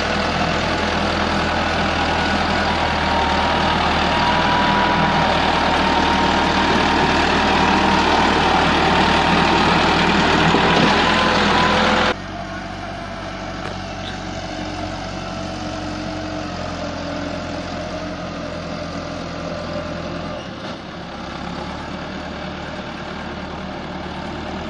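Massey Ferguson 385 tractor's four-cylinder diesel engine running steadily while pulling a soil-loaded trolley. About halfway through, the sound drops suddenly and the engine runs on quieter and more distant.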